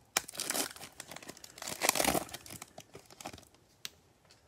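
Foil wrapper of a Panini Prizm basketball trading-card pack being torn open and crinkled, in two bursts of tearing and crackling, the louder about two seconds in. A few light ticks and one sharp click follow near the end as the cards are handled.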